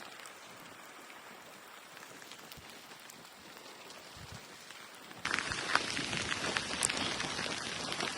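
Heavy rain falling, a steady hiss that jumps abruptly much louder about five seconds in, with many sharp drops hitting close by.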